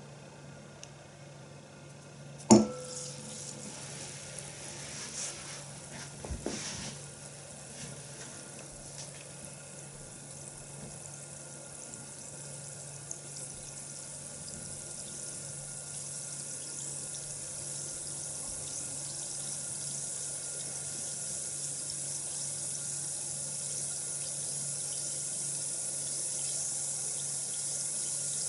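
Water running from a tap into a basin, the hiss of the stream growing steadily louder. A sharp knock comes about two and a half seconds in, and a few softer clatters follow a few seconds later.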